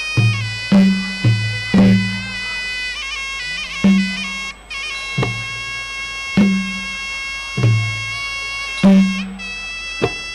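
Traditional Khmer boxing ring music: a shrill reed pipe (sralai) holds a wavering, nasal melody over low drum strikes. The drum beats fall several close together at first, then settle to about one every second or so.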